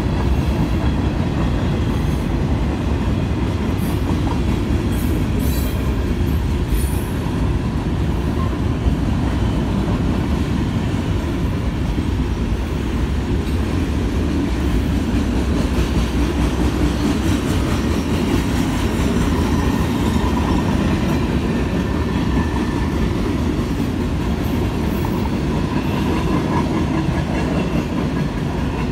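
CSX freight train's hopper, gondola and coil cars rolling past close by: a steady loud rumble of steel wheels on rail, with brief high screeches from the wheels about five to seven seconds in.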